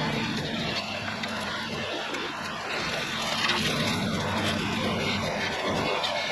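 Bobcat E42 mini excavator's diesel engine running steadily under load, with its hydraulic brush cutter attachment spinning, heard as a continuous engine drone under a broad rushing hiss.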